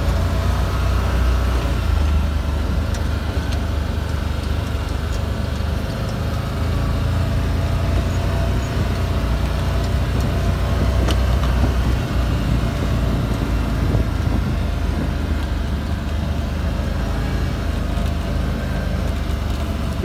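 A farm vehicle's engine running steadily as it drives, a continuous low drone.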